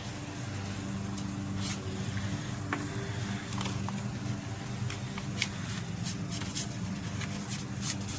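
A folded paper airplane being handled and pressed together after gluing: light paper rustles and scattered small clicks, over a steady low hum.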